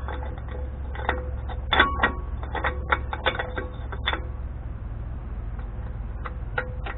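Quick metallic clicks and clinks of a socket and ratchet being worked on the spindle nut of a Dana 44 front wheel hub, as the nut is backed off a third of a turn. The clicks come thick from about a second in to about four seconds, then a few more near the end, over a steady low hum.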